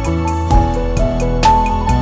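Background music: a soft keyboard melody over held chords with a steady beat.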